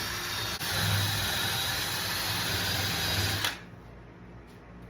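Small handheld power tool motor running with a faint whine. It cuts out for an instant about half a second in, runs again, then stops suddenly about three and a half seconds in.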